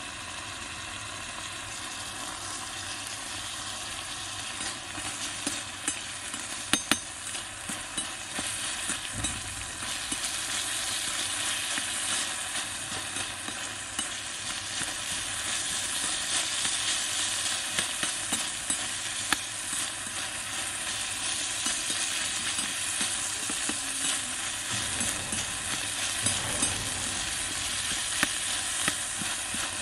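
Stir-frying in a miniature wok: sliced winged beans, chicken and chillies sizzling in hot oil, the sizzle growing louder a few seconds in, with sharp clicks of the small metal spatula against the pan.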